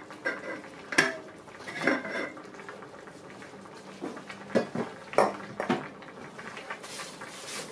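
Metal kitchen utensils and pots clinking and knocking: several separate sharp clinks with a short ring, the loudest about a second in and a cluster between four and six seconds.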